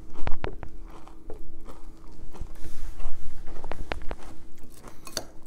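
Spoon stirring chocolate crisp-rice cereal and milk in a glass bowl: soft wet crunching with scattered sharp clicks of the spoon against the glass.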